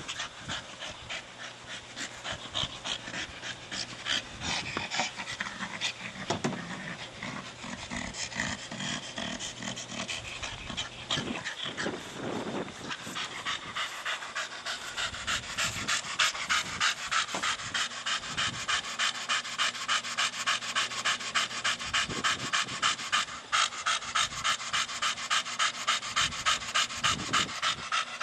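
Staffordshire Bull Terrier panting hard, in quick even breaths of about three a second that grow louder and steadier in the second half. He is out of breath after playing with his ball.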